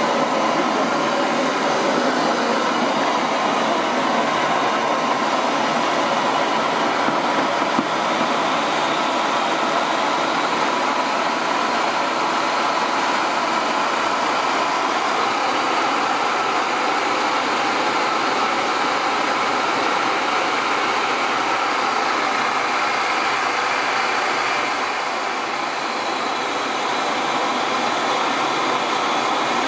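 Small turbocharger-based jet engine running: a steady loud rush of exhaust and air with a faint whine. It drops a little in level about twenty-five seconds in, then comes back up.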